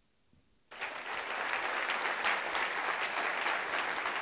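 Audience applauding, breaking out suddenly about a second in and continuing steadily.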